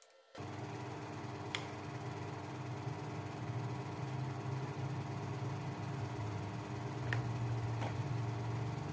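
A steady low mechanical hum, a motor or fan running, which starts abruptly just after the beginning. Three light clicks come over it as the knife and plastic containers are handled.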